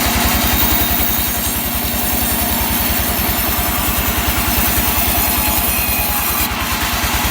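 Sawmill's engine running steadily with an even low pulse.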